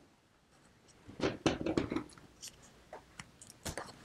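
Heavy canvas fabric and piping cord being worked by hand, a soft rustling followed by a few light clicks.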